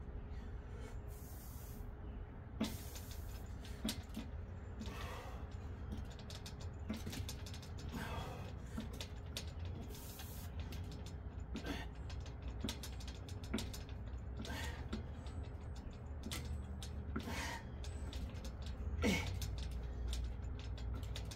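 Steel dip station creaking and clicking under a man doing dips, a short creak about every one to two seconds with each rep, some sliding down in pitch. The frame is not anchored and shifts on the ground as he works.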